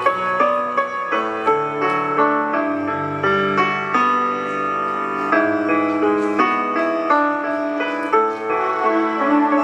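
Instrumental music led by piano: keyboard chords and a melody played at a steady pace, with a new note or chord every fraction of a second.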